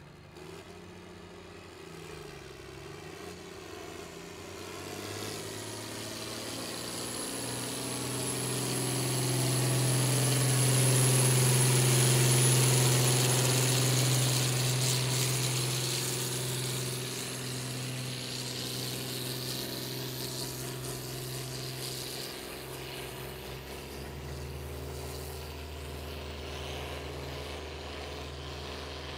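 Competition pulling vehicle's engine at full throttle, hauling a weight-transfer sled down the pull track. It grows louder to a peak about halfway through, then fades as the rig moves away down the track, with a steady high whine over the engine.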